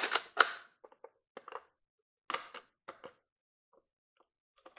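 Handling noise from a plastic-bodied O-gauge toy boxcar being turned over in the hands: a string of short clicks and rustles, loudest in the first half second, then softer scattered ones.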